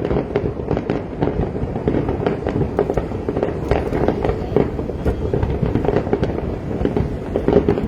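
Fireworks going off: a dense, unbroken run of bangs and pops.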